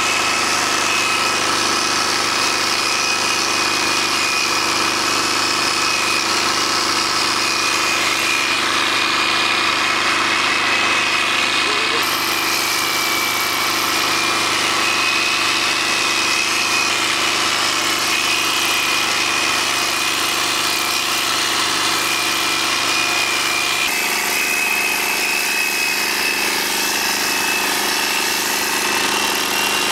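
Corded electric horse clippers running steadily with a high whine while shearing a pony's thick winter coat.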